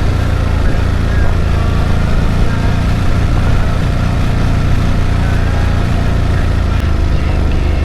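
Ducati Monster 937's L-twin engine idling steadily through its stock exhaust, a low, even-level engine note with no revs.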